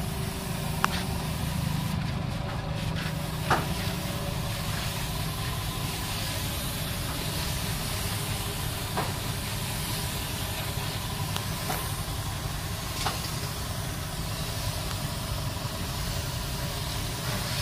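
Gravity-feed paint spray gun hissing steadily as compressed air atomises paint onto a car panel, over a low rumble, with a few short sharp clicks.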